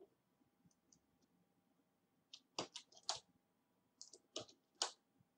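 A string of faint, sharp computer keyboard and mouse clicks, starting about two seconds in, as code is edited and saved on a PC.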